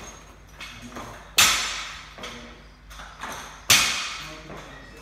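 Barbell with 15 kg rubber bumper plates dropped onto the gym floor after an overhead lift: two heavy thuds about two seconds apart, each ringing out and echoing in the hall, with lighter knocks between them.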